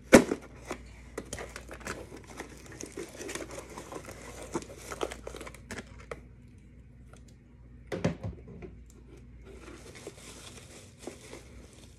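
A cardboard box being opened by hand: packing tape slit and torn and the cardboard flaps rustling, then bubble wrap crinkling as it is handled. Two sharp snaps stand out, one right at the start and one about eight seconds in.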